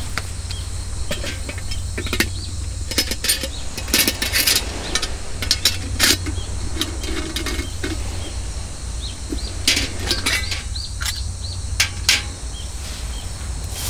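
Scattered clicks, taps and light clinks of small camp utensils and a metal mug being handled at a table, over a steady low rumble.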